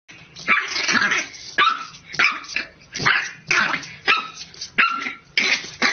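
A puppy barking at its own reflection in a mirror: about nine short, high-pitched barks in quick succession, one every half second or so.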